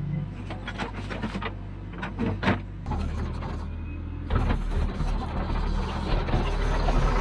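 Heavy machine's engine running with a series of sharp clanks and knocks in the first couple of seconds. The engine then gets louder in two steps, about three and four seconds in, as it is worked harder.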